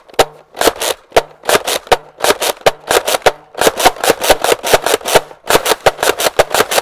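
Nerf Rival Hades pump-action foam-ball blaster fired again and again in quick succession: sharp plastic clacks of the pump being worked and the shots going off, several a second, some in close pairs.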